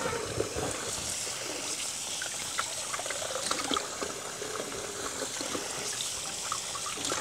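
Kitchen faucet running a steady stream of water while apples are rinsed under it by hand, with a few light knocks as the apples are handled over the sink and bowl.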